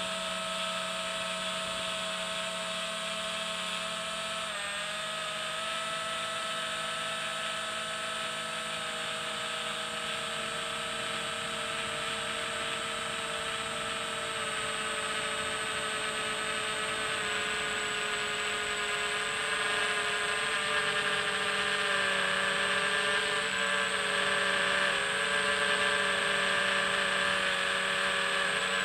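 Electric motor and propeller of a radio-controlled aircraft heard from its onboard camera: a steady whine of several tones over a hiss. The pitch drifts slightly, and it gets a little louder in the second half.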